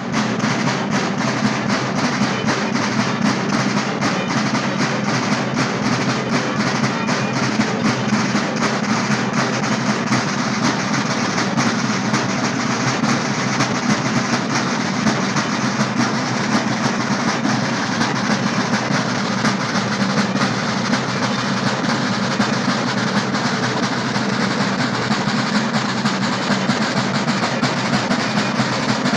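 A group of Sicilian tamburi, large rope-tensioned drums, beaten together with sticks in dense, unbroken drumming at a steady level.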